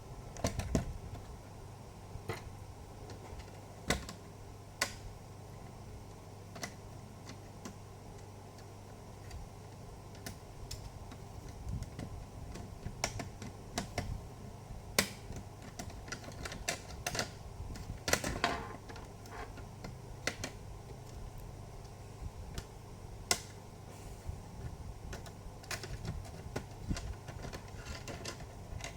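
Scattered small clicks and taps of plastic laptop parts being handled as the internal speakers are worked out of an opened HP Pavilion G4 laptop, busiest around the middle, over a faint steady low hum.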